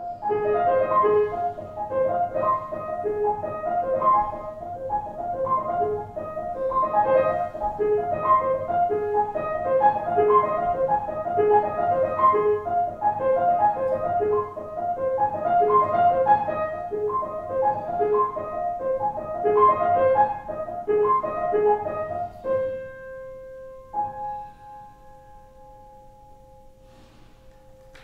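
Keyboard music, piano-like: a fast, repeating pattern of short notes. About twenty-two seconds in the run stops and two long held tones take over, the second coming in a moment after the first, sounding on more quietly.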